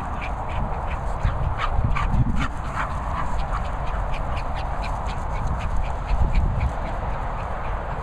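A dog's toy bird squeaking over and over in short quick squeaks, about three a second, as it is chewed during play, over a low rumble.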